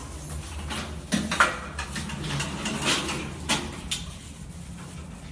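A few sharp knocks and clattering sounds, some with a metallic ring, over a low steady hum.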